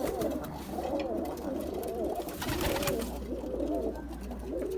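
Domestic pigeons cooing, many overlapping coos at once, with a few sharp clicks about a second and two and a half seconds in.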